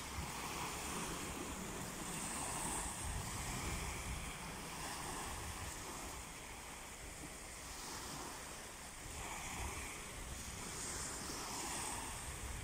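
Small sea waves washing onto a pebble shore, the wash swelling and easing every two seconds or so, with wind rumbling on the microphone.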